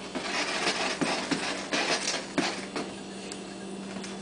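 A ferret scratching and tugging at a big toy chicken, trying to tear its covering off: scratchy rustling with small knocks, easing off about three seconds in. A steady low hum runs underneath.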